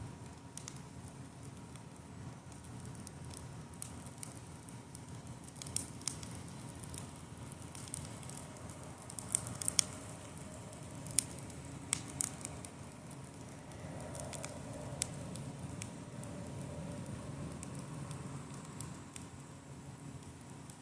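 Campfire burning, the wood crackling with scattered sharp pops over a steady low rush. The pops come thickest and loudest about nine to twelve seconds in.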